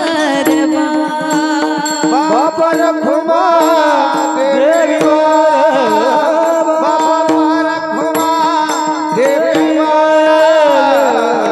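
Marathi devotional kirtan singing: a voice holds long, gliding, ornamented notes without clear words over a steady drone, with a running pattern of drum and cymbal strokes.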